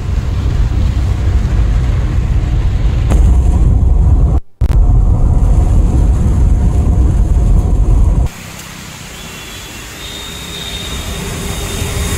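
Heavy low rumble of cars driving through floodwater on a waterlogged road, broken once about four and a half seconds in. About eight seconds in it switches to a quieter, brighter hiss of rain and traffic on a flooded street.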